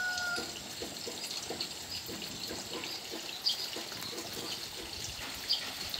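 Water trickling steadily into a small fish pond, with faint high ticks now and then.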